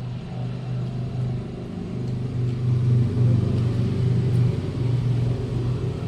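A low, steady engine rumble that grows louder about two to three seconds in and then holds.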